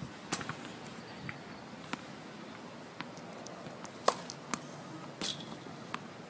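Tennis balls on a hard court: a run of sharp, unevenly spaced pops and taps from balls bouncing and being struck by a racket, the loudest about four seconds in.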